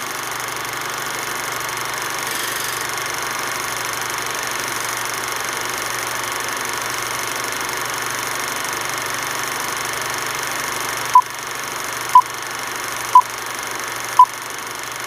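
A steady hiss with a faint hum, then four short, loud beeps of one pitch, a second apart, near the end: film countdown-leader beeps.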